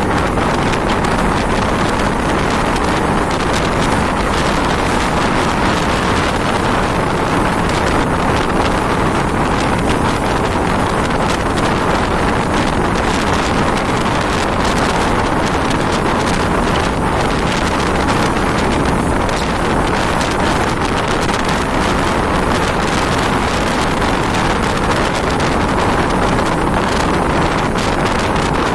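Mumbai suburban local train (electric multiple unit) running steadily along the track, its rumble and rail clatter mixed with strong wind buffeting the microphone at an open door.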